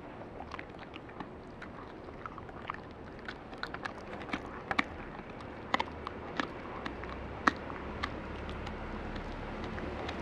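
Husky chewing a crunchy dog treat with its mouth open: a run of irregular crunches and clicks, the loudest about seven and a half seconds in.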